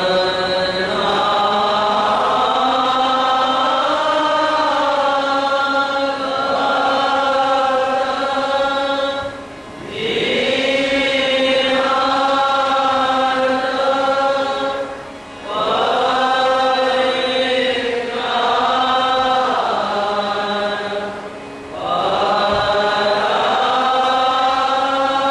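Voices chanting a devotional arati hymn in long, sustained phrases, with three brief pauses between phrases.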